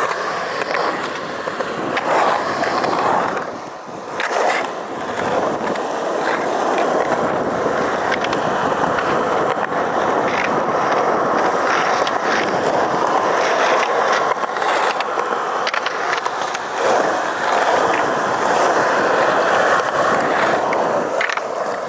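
Skateboard wheels rolling on concrete, a steady rumble broken by occasional clicks and knocks of the board. It fades briefly about four seconds in.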